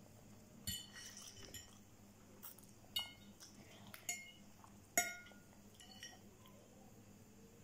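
Metal fork clinking against a ceramic plate while twirling noodles: about half a dozen sharp clinks with a brief ring, the loudest about five seconds in.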